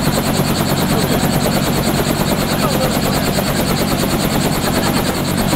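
Robinson R44 helicopter running on the ground: its piston engine and two-blade main rotor make a steady, loud drone with a rapid, even beat.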